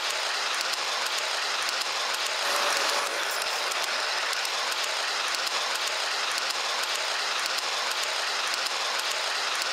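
Steady rushing rail noise of a train running along the track, with faint irregular clicks. It is a little louder for a moment about two and a half seconds in.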